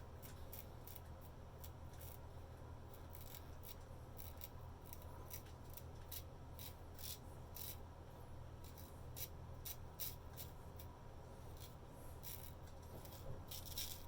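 Antique straight razor scraping through stubble on skin in a series of short, faint, uneven strokes, several a second at times.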